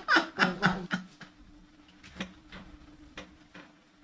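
A man's laughter trailing off in a few short bursts, then a handful of faint, scattered clicks over a steady faint hum.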